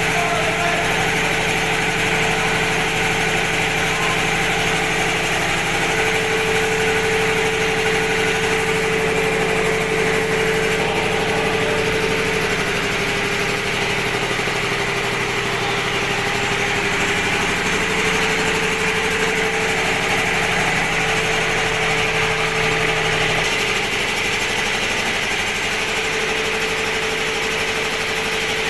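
Two-cylinder piston air compressor and its electric motor running steadily with a constant hum. A lower tone in the hum drops out about three-quarters of the way through.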